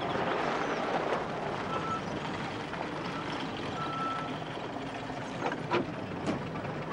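Old 1930s saloon car's engine running as the car drives along and draws up. It gives two short high squeaks at about two and four seconds in, then a few sharp knocks near the end.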